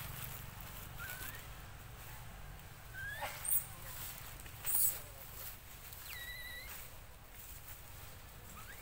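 A few short high-pitched animal squeaks and chirps, scattered through the stretch, with one longer wavering call about six seconds in, over a faint steady low hum.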